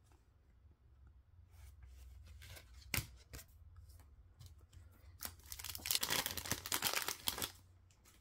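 A hockey card pack's wrapper being torn open: a sharp click about three seconds in, then about two seconds of dense crinkling and tearing.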